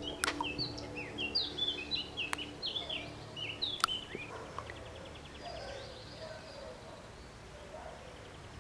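Small birds chirping in quick short calls, with a few sharp clicks among them. In the second half the chirps thin out and a rapid, even ticking trill comes and goes.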